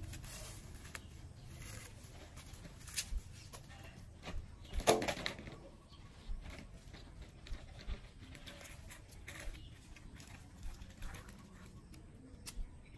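Quiet scattered crackling and rustling of dry, charred husks being peeled off roasted corn cobs, with one brief louder sound about five seconds in.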